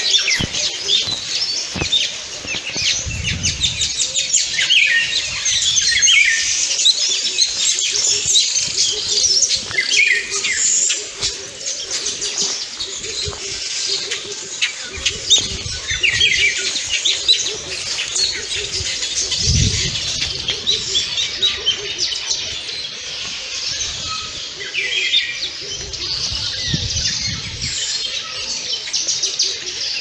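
Many birds chirping and calling at once: a dense chorus of short, high notes, with a few brief low rumbles.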